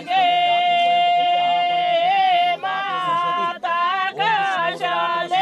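Singing: one voice holds a long, slightly wavering note for about two seconds, then moves through shorter phrases with quick ornamented turns in pitch.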